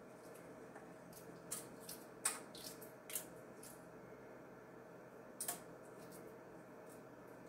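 Eggshell crackling and peeling off a hard-boiled egg by hand: faint, irregular small crackles and clicks.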